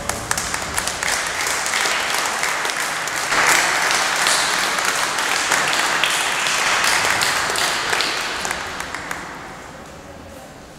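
Audience applauding. The clapping dies away over the last couple of seconds.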